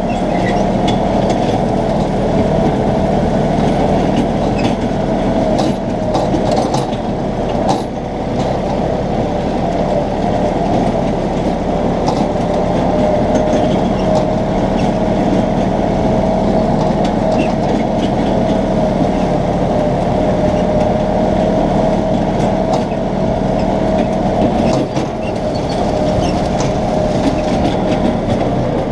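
Kioti compact tractor's diesel engine running steadily under load while mowing: a constant drone with a steady high whine over it and a few faint clicks and knocks.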